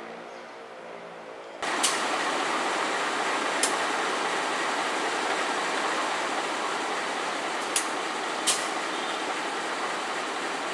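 A faint low engine hum from an approaching train, then about one and a half seconds in a sudden loud, steady hiss of a water jet spraying onto the side of the passenger coaches as they are washed. A few sharp knocks sound through it.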